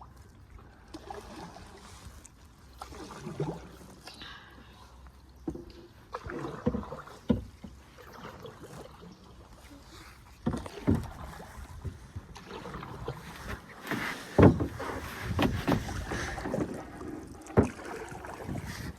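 Canoe being paddled: irregular splashes of paddles in the water and occasional knocks against the hull, the loudest about fourteen and seventeen seconds in, over a low wind rumble on the microphone.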